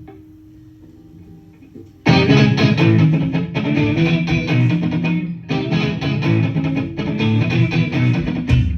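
Live rock band starting a song: a faint held note, then electric guitar and bass come in loud about two seconds in, and a low hit near the end as the full band joins.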